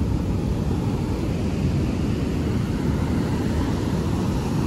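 Steady roar of heavy surf breaking on a beach, with a deep rumble and no separate events.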